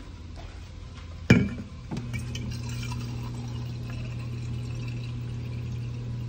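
A sharp clink about a second in, then a drinking-water dispenser runs with a steady low hum while water streams into an insulated tumbler.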